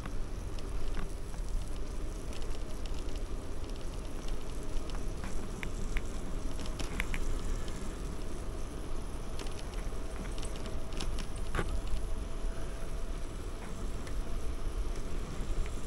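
Wind and road noise from riding a bicycle: a steady low wind noise on the microphone with a rolling hiss, broken by scattered small clicks and crackles, a sharper click about twelve seconds in.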